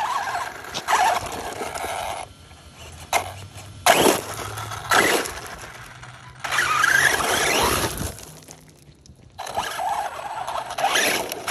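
Electric RC truck driving in several short runs: its motor whines up and down in pitch while the tyres scrabble over asphalt and loose gravel.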